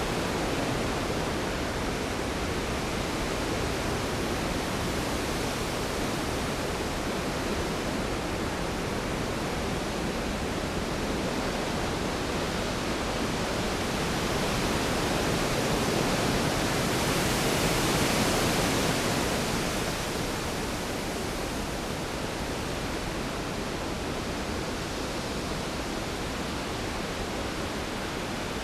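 Storm sound effect: a steady hiss of heavy rain, swelling a little louder and brighter about two-thirds of the way through, with no thunder cracks.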